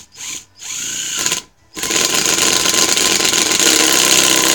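Harbor Freight (Chicago Electric) 12 V lithium-ion 1/4-inch hex impact driver driving a screw into wood. It gives a short blip and a brief run, pauses, then from about two seconds in runs loud and continuous as its impact mechanism hammers.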